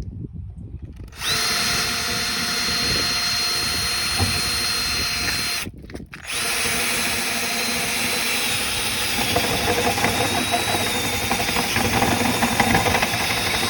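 Power drill running as it bores a hole through the back door of a Toyota Sequoia, starting about a second in, stopping briefly just before six seconds, then starting again. On the second run the steady whine dips slightly in pitch and turns rougher from about nine seconds as the bit cuts in under load.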